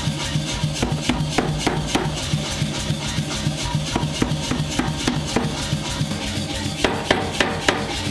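Beche power hammer striking a red-hot steel ball held in tongs on its die: repeated sharp blows at uneven intervals, under background music.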